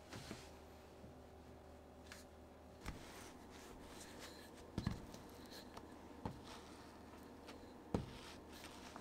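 Kitchen work sounds: about half a dozen light knocks and clinks of utensils or containers being handled, the loudest near the end, over a steady low hum.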